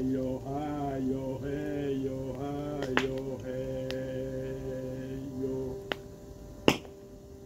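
A wood fire of stacked logs crackling, with a few sharp pops; the loudest comes near the end. Over it a voice sings a slow chant in long held notes, which stops about six seconds in.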